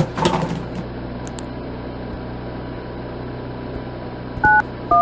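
Phone keypad touch tones: two short two-note beeps near the end, about half a second apart, over a steady low hum.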